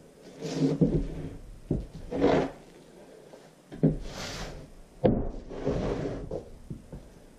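Large OSB (oriented strand board) frame being handled and set down on a wooden workbench: a series of knocks and short sliding scrapes as the frame is moved and laid flat.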